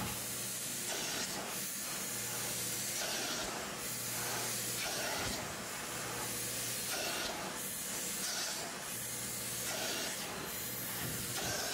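Aqua Pro Vac carpet extractor spraying and sucking through its clear hand upholstery tool as it is drawn over a cloth car seat: a steady suction hiss that swells with each pass, with a low hum that comes and goes.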